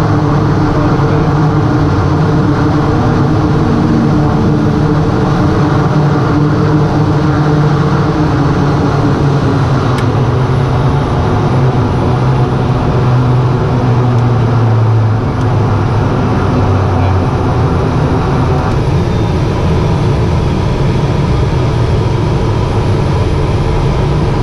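Rolls-Royce 250 turboprop and propeller of a Cessna P210 Silver Eagle running at low power while the aircraft rolls on the ground after landing, heard inside the cockpit. It is a steady, loud drone with several low tones in it, which shift about halfway through; the sound eases a little after that.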